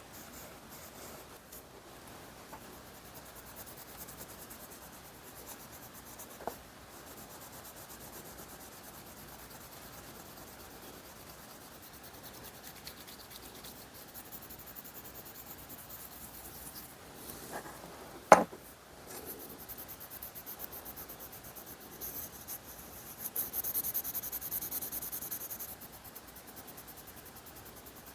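Faint rubbing and scraping of hand work on pliers being cleaned up, with a sharp click about two-thirds of the way through and a brief hiss near the end.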